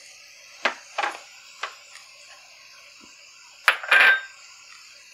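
Light clinks and knocks of small glass spice bowls and utensils being handled between spice additions: three soft knocks in the first two seconds, then a louder ringing clink near four seconds, over a faint steady hiss.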